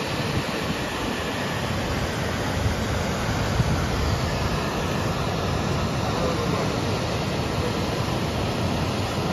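Waterfall rushing: the steady, even roar of water pouring over a rock ledge into a pool.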